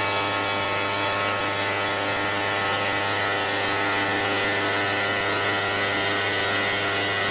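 CNC stone-cutting router (quartz stone machining center) running steadily: a continuous machine hum with a set of fixed whining tones over a noisy hiss, level and unchanging throughout.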